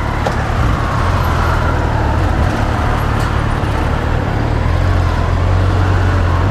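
Kawasaki Z800 inline-four engine on its stock exhaust running at a steady speed on the move, a low even rumble mixed with wind and road noise.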